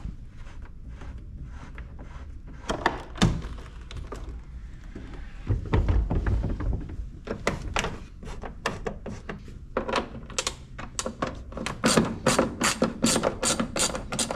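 Repeated plastic knocks and clicks as a side panel is worked off a Yamaha WaveRunner, with a low thud about halfway through and a quick run of knocks in the last few seconds.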